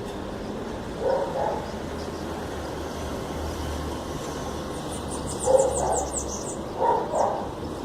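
A cat meowing for attention: one short meow about a second in, then two or three more in quick succession near the end. A bird's rapid high-pitched trill of chirps sounds in the background just before the last meows.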